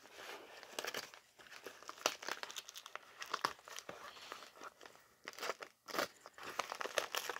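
Packaging being handled and opened by hand: irregular crinkling and crackling with small sharp clicks, a little louder around two and six seconds in.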